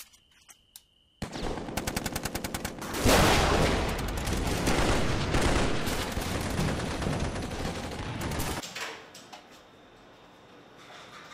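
Automatic gunfire starting suddenly about a second in, a rapid string of shots at about six a second. It swells into a dense, loud barrage of heavy firing that dies away after about eight seconds.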